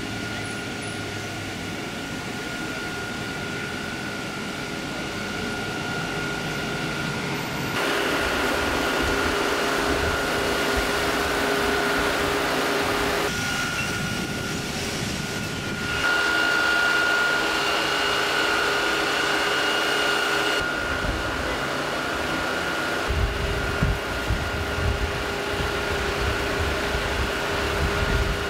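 Fire engine running steadily with its water pump engaged, giving a constant whine over the engine noise. The level jumps several times where the footage is cut.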